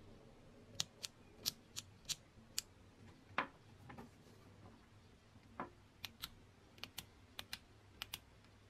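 A string of sharp, irregular clicks and taps of hand work on small hard parts, about fifteen in all, some in quick pairs, over a faint steady low hum.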